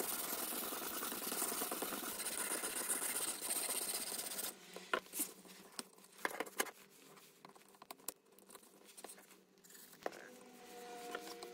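A 1500-grit whetstone on a fixed-angle guided sharpening system stroked back and forth along a steel knife edge, a continuous gritty scraping for about the first four and a half seconds. After that come scattered clicks and knocks as the stone is handled and changed on the guide rod.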